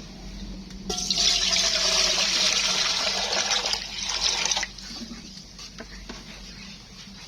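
Water pouring or gushing for about three and a half seconds, starting about a second in and cutting off suddenly.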